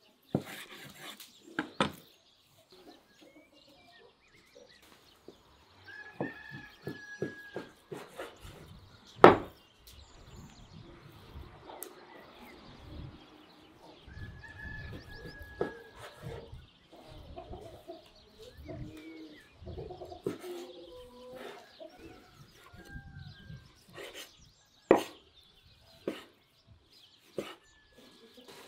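Chickens clucking, with scattered clicks and knocks; two sharp knocks, about nine seconds in and near the end, are the loudest sounds.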